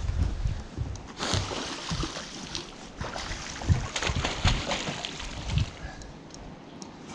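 A hooked Atlantic salmon thrashing and splashing at the water's surface, in bursts about a second in and again from about four seconds in.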